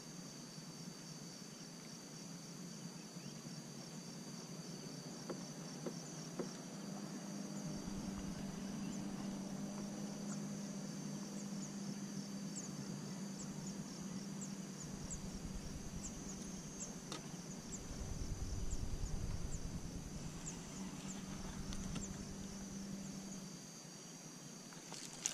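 Steady chorus of insects chirping and buzzing in a high register, with a low rumble coming and going, loudest a little over two-thirds of the way through, and a faint steady hum in the middle part.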